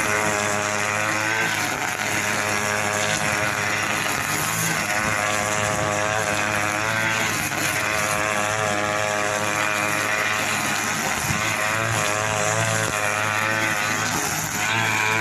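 Two-stroke petrol brush cutter running at high revs, its engine note wavering up and down as the line cuts through thick grass and weeds.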